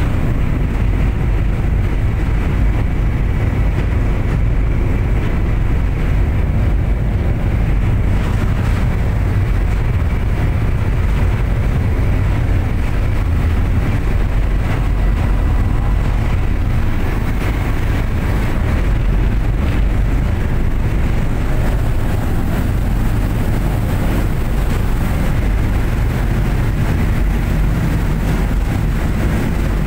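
Passenger ferry under way: a steady, deep low rumble from its engines, with a haze of water and wind noise over it.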